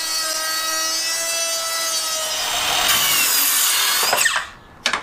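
Handheld router with a half-inch rebating bit running as it cuts a rebate along a pressure-treated board: a steady high whine. About three seconds in it gives way to a circular saw cutting through a board, louder and noisier, whose motor then winds down with a falling whine, followed by a click.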